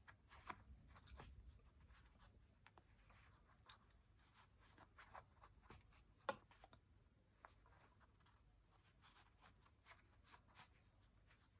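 Faint, soft scratching and rustling of a needle and thread being drawn through fabric in hand stitching, with small clicks throughout and one sharper click about six seconds in.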